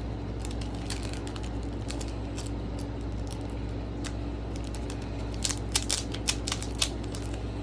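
Foil wrapper of a Pokémon booster pack being worked at to get it open: scattered crinkles and sharp clicks, busiest and loudest between about five and seven seconds in, over a steady low hum.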